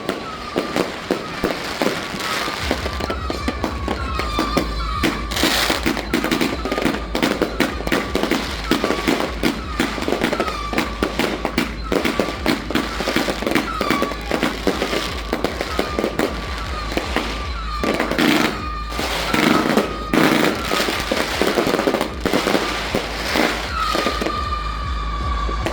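Firework cake batteries firing continuous rapid volleys of bangs and crackling shots. Short whistling tones recur every second or so throughout.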